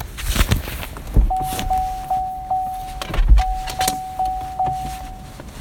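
A steady high electronic tone sounds twice, each time for about two seconds, over wind buffeting and knocks on the microphone inside a moving car.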